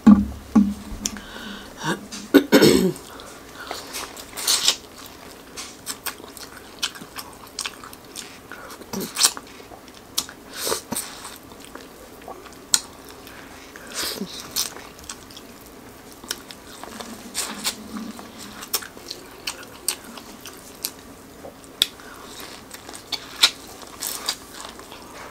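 Close-miked biting and chewing of sauce-dipped corn on the cob: irregular crisp crunches as kernels are bitten off the cob, with chewing between bites.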